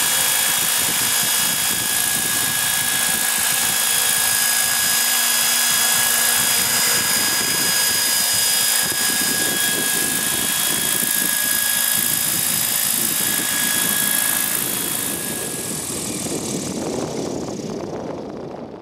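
Hurricane 550 radio-controlled model helicopter hovering: a steady high-pitched whine of the motor and drive over the rush of the spinning rotor blades. The sound fades out over the last few seconds.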